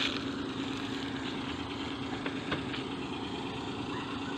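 Truck engine running steadily, a low hum holding one even tone.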